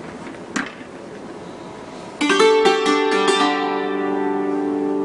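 Hammered dulcimer: after low room noise and a single click, about two seconds in a quick flurry of hammer strikes on its strings starts the piece, then the struck notes ring on together.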